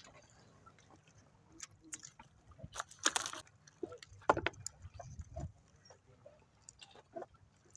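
Scattered small knocks, clicks and rustles of a fish being unhooked and handlines being worked aboard a small wooden boat, with one louder rustle about three seconds in.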